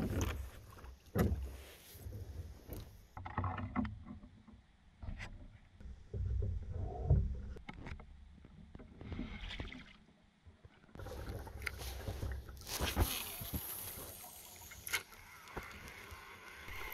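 Scattered knocks and clicks from handling gear and a small northern pike aboard a plastic fishing kayak, with water moving against the hull. About eleven seconds in, a steady rush of water and wind begins, broken by a few more sharp clicks.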